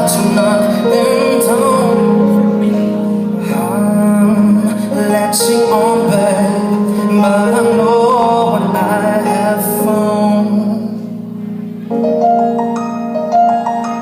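Live pop song: a voice singing over piano or keyboard chords. About eleven seconds in the singing stops and the music dips, then the keyboard carries on with repeated chords.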